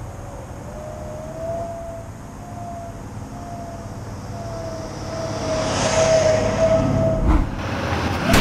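Cinematic intro sound design: a low rumbling drone under a slowly wavering held tone, swelling with a rising whoosh to a low hit about seven seconds in.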